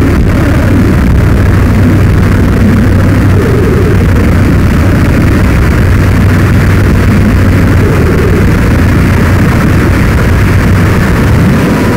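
Loud, harsh electronic noise music played live on a tabletop rig of synthesizer modules and patched electronics: a dense steady wall of noise over a low hum, with shifting tones and no beat.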